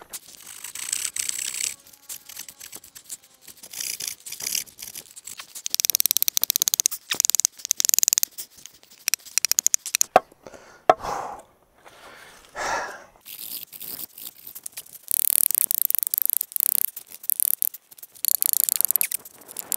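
A blade cutting a notch into a wooden pole, in runs of rapid rasping strokes with short pauses between them.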